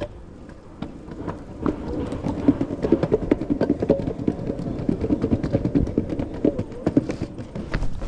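Electric skateboard rolling over pavement. Its wheels make a dense, rapid rattling clatter that builds about two seconds in and keeps going.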